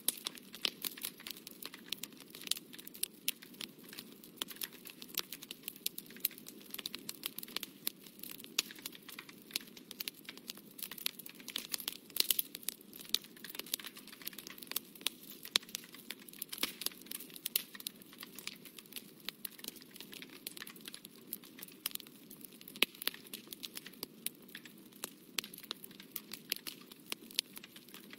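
Watercolour brush working on paper: a dense, irregular crackle of small scratchy clicks, over a steady low hum.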